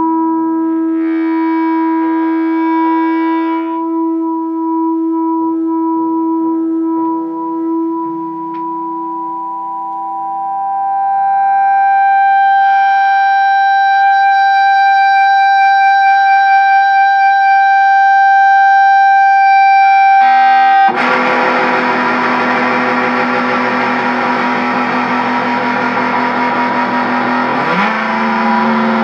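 Electric guitar through a high-gain Acapulco Gold distortion pedal. Held notes ring on, then one steady high tone sustains for about ten seconds. About 21 seconds in, loud distorted chords crash in, with a note bent upward near the end.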